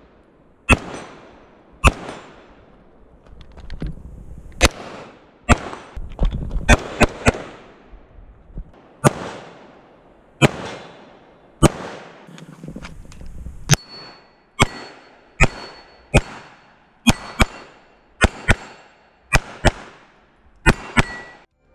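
Around two dozen pistol shots from a Smith & Wesson M&P 9 C.O.R.E. 9mm, fired singly and in quick pairs at uneven intervals, each sharp crack followed by an echo.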